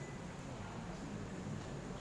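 Faint room noise: a steady low hum with a soft hiss and a few faint clicks.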